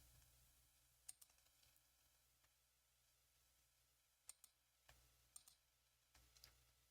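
Near silence: room tone with a low hum and about five faint, sharp clicks spread irregularly through the pause.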